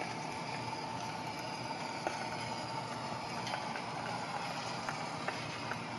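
Gauge 1 live steam Shay locomotive running while pulling a rider: a steady hiss with a few faint, irregular clicks.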